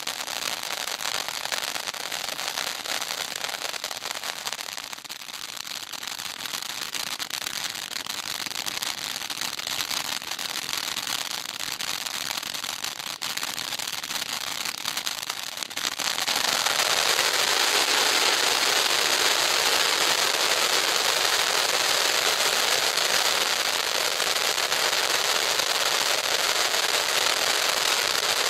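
'World's Strongest Fountain' ground firework fountain spraying sparks: a continuous crackling hiss that grows suddenly louder and steadier a little past halfway.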